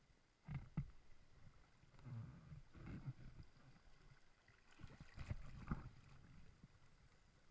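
River water sloshing and splashing against an inflatable tube right at the camera, in three faint bursts over a quiet background of flowing water.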